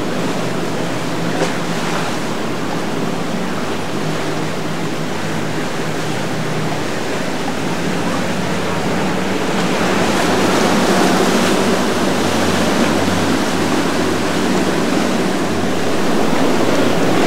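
Ocean waves and rushing water in a rough inlet, with wind on the microphone and a steady low hum of boat engines underneath; the sound swells louder a little past the middle.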